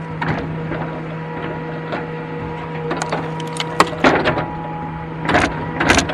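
Excavator engine running steadily with a constant whine, and several sharp knocks and clunks, loudest about four and six seconds in, from logging work.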